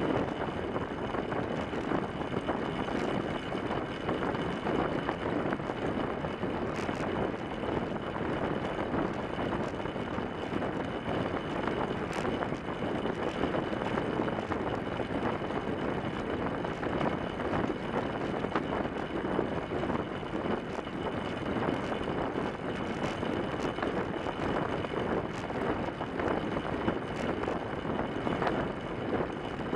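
Steady rush of wind and tyre rolling noise from a track bike riding on the wooden boards of a velodrome, heard from a microphone mounted on the bike's front fork, with a few faint ticks.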